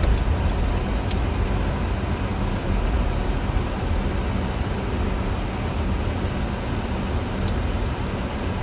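Steady low road and engine rumble heard inside a moving car's cabin, with a faint click about a second in and another near the end.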